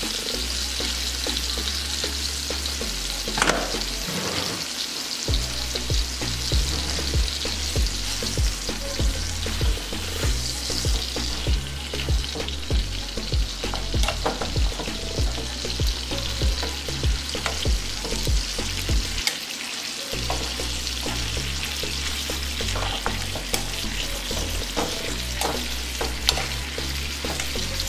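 Pork chops searing in a pan of hot oil and butter on high heat, with a steady sizzle and frequent pops and crackles of spattering fat.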